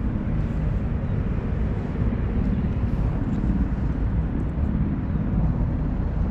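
Steady low outdoor rumble with a faint hiss above it, unchanging throughout.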